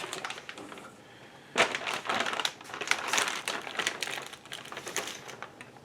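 Packaging being unwrapped from a new car part: a run of crinkling, crackling rustles and small clicks starting about one and a half seconds in.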